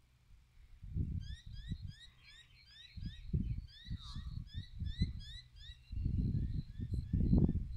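A bird repeats a short, high, rising chirp about three times a second, starting about a second and a half in, over irregular low rumbling on the microphone that swells loudest near the end.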